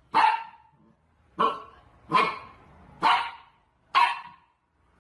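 Dog barking five times, about one bark a second.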